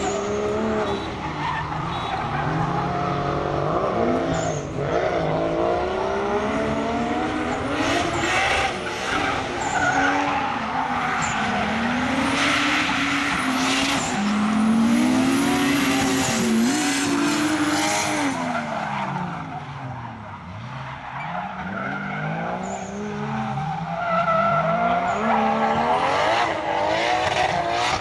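Drift cars sliding in tandem, their engines revving up and down as the throttle is worked, with tyres squealing and skidding.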